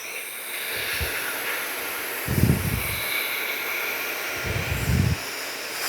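Hairdryer blowing on its cool setting: a steady, loud rush of air with a faint high whine. Low rumbles swell and fade three times, briefly about a second in, then around two and a half and four and a half seconds in.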